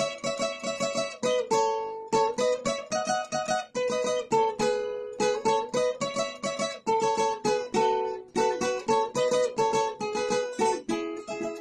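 Acoustic guitar with a capo, played fingerstyle: a quick plucked melody picked out note by note over bass notes, in A major.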